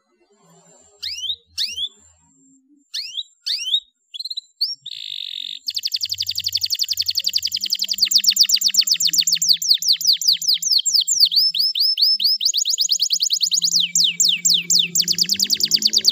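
Domestic canary calling: a few separate high, falling chirps, a short buzzy note, then from about five seconds in a fast, steady trill of falling notes that runs on.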